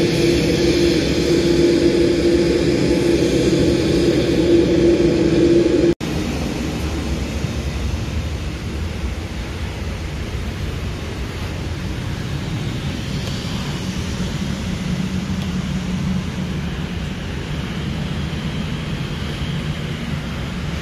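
Boeing 787-8 cabin noise: a steady rush of air with a constant hum for about six seconds. It cuts off abruptly and is replaced by a slightly quieter, lower, even rumble.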